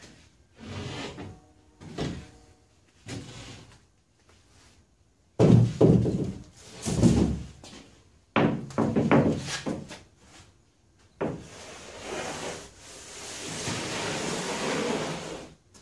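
A large plywood sheet being handled and lowered onto a wooden trailer floor frame: a series of knocks and heavy thuds as the board bumps the frame. Near the end comes a longer scraping as the sheet is slid across the frame into place.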